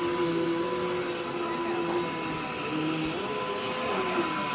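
Vacuum cleaner running steadily: a constant motor whine with a lower tone that wavers up and down in pitch.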